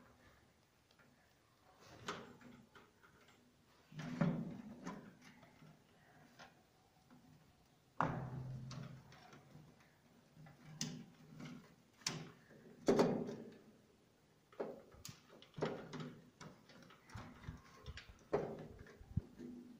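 Irregular clicks, knocks and rustling from gloved hands and a crimping tool working wires into the breakers of an electrical distribution panel.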